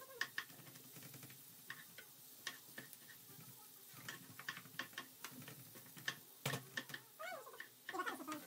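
Wooden spoon clicking and scraping against a nonstick frying pan as chopped onions are stirred, a string of light irregular clicks. Near the end a short wavering vocal sound cuts in.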